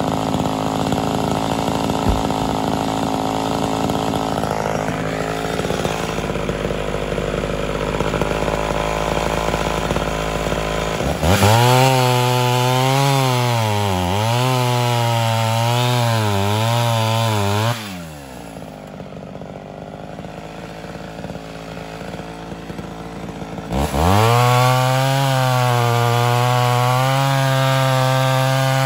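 Ported Homelite Super XL Auto two-stroke chainsaw running steadily at low speed for about ten seconds. It then goes to full throttle and cuts through a log, the engine pitch wavering as the chain loads in the wood. It drops back for a few seconds and then cuts again at full throttle.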